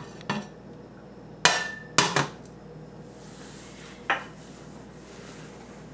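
About five sharp knocks and clinks of kitchenware being handled and set down, the loudest about a second and a half in with a brief ring, and two more in quick succession just after.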